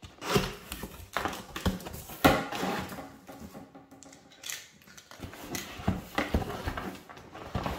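Cardboard box being opened by hand: tabs pulled out of their slots and lid flaps folded back, making a run of sharp clicks, scrapes and rustles of cardboard, the loudest snap about two seconds in.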